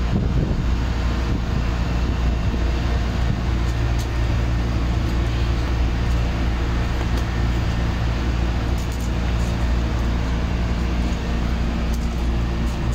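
Steady low machinery hum with a few even low pitched lines, the drone of running air-conditioning plant: fans and compressors.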